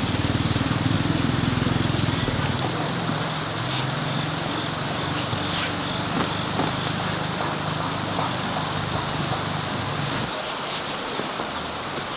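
An engine running steadily, louder at first and then dying away about ten seconds in.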